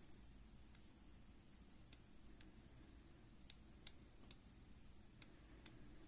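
Near silence with faint, scattered sharp clicks, about eight of them at irregular intervals, from small objects being handled, over a low steady hum.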